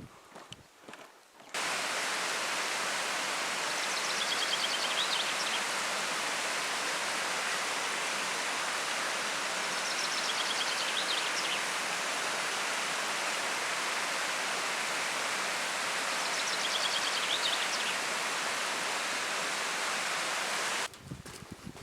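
Steady rush of flowing water, a stream or waterfall, cutting in about a second and a half in and stopping abruptly near the end. A bird calls faintly three times over it.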